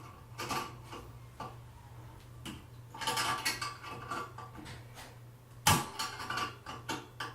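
Small metallic clicks and clinks of a crescent wrench and nut being tightened on a metal bulb guard, with a rattling run about three seconds in and one louder knock near the end.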